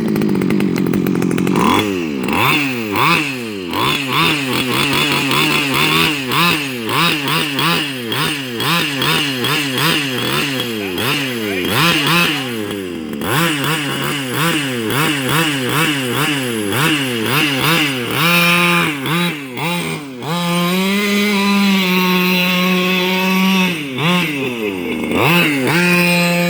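A weedwacker's small two-stroke engine in a gas-powered RC car, revved up and down over and over, about one to two revs a second. Near the end it holds a steady high speed for a few seconds, with a brief dip.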